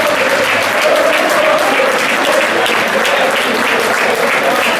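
Football supporters in the stand clapping in a steady rhythm while chanting together.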